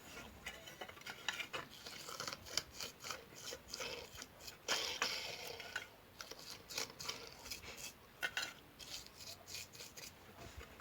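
Small brush scrubbing the bearing of a belt tensioner pulley in petrol, a run of irregular scratchy strokes as the old, dirty grease is washed out before regreasing.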